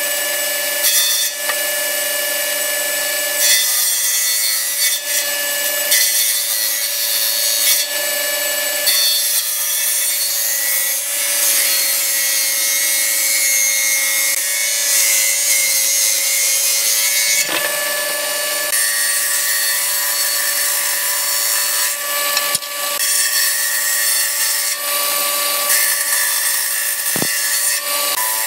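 Hitachi table saw running with a steady whine while its circular blade rips a wooden beam lengthwise. The cutting noise shifts every few seconds as the board is fed through, and a single knock comes near the end.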